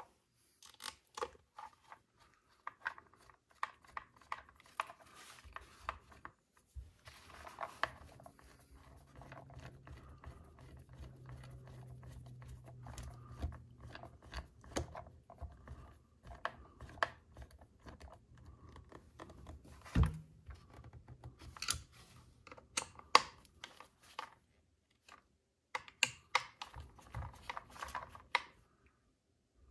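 Small scattered clicks and ticks of a hex driver, screws and small parts being handled and fitted into the plastic chassis of a Traxxas Rally RC car, with a knock and a few sharper clicks in the second half.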